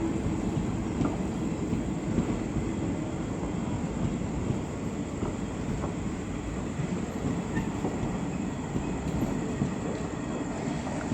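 Train wagons rolling past with a steady rumble of wheels on the rails.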